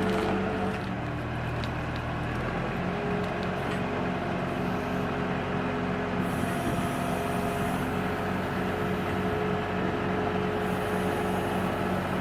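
A motor running steadily with a constant low hum, with a few faint clicks.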